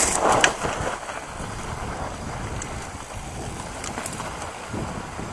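Mountain bike riding down a rough dirt trail: steady wind rush over the microphone with tyre noise from the dirt, and a few sharp knocks and rattles from the bike in the first half-second.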